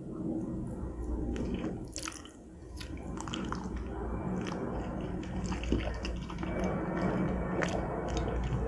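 Macaroni and cheese being chewed close to the microphone: steady chewing with many small clicks and smacks of the mouth.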